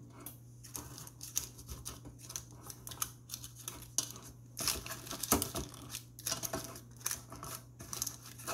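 Paper cupcake liners rustling and crinkling as they are pressed into a metal muffin tin, with light irregular taps and clicks, busiest about halfway through. A faint steady low hum runs underneath.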